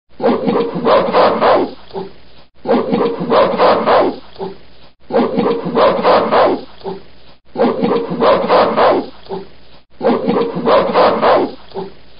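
Gorilla calls: the same short clip of a loud, pulsing call is played five times in a row, once about every two and a half seconds.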